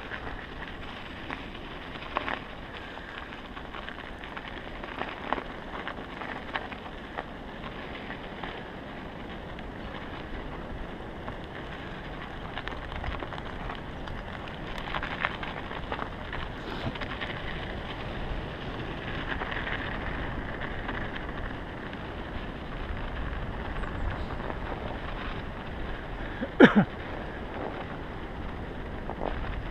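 Mountain bike tyres rolling over packed snow, a steady hiss, with scattered clicks and rattles from the bike and one loud sharp knock near the end.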